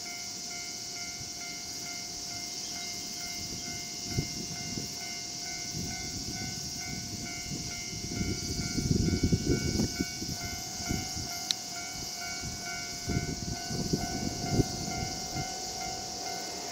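An EF65 electric locomotive hauling flat wagons loaded with long rails approaches slowly. Its wheels rumble and clatter over the track, swelling about halfway through and again near the end, over a steady high hiss.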